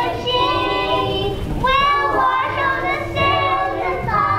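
Young children singing a song, the melody moving through held notes.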